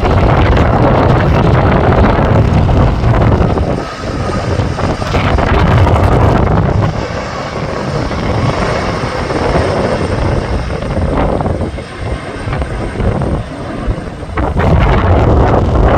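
Strong gusting wind buffeting the microphone, a loud low rumble that swells and eases with the gusts.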